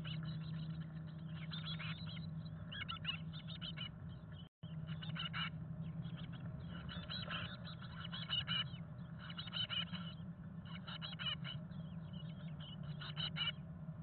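Chickadees calling inside a nest box: short bursts of rapid, high calls come about once a second or two, over a steady low hum.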